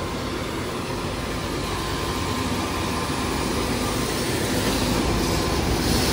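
Vacuum tanker truck's engine and suction pump running, a steady mechanical drone that grows louder near the end.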